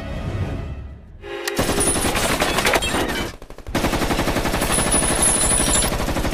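Heavy remote-controlled machine gun firing long bursts of rapid automatic fire. It opens up about a second and a half in, pauses briefly, then fires again from about three and a half seconds on.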